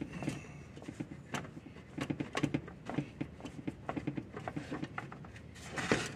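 Hands pressing and patting biscuit dough in a large wooden salad bowl, with irregular soft knocks and scrapes against the bowl and a louder flurry near the end.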